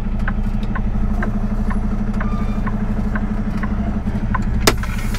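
Semi truck's diesel engine running steadily at low speed while reversing, heard from inside the cab. A faint regular ticking about twice a second runs over it, and a single sharp click comes near the end.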